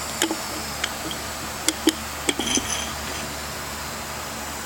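A handful of light metallic clinks and knocks as a new suspension strut is slid into its compressed coil spring, parts tapping together, one clink ringing briefly, over a steady low hum.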